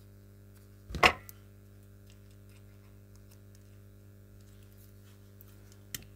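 A single sharp knock about a second in, then a lighter click near the end, over a steady low electrical hum; small objects being handled and set down on a work surface.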